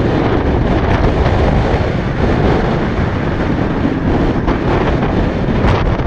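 Heavy wind buffeting the microphone of a camera on a moving vehicle, with road and engine noise beneath it.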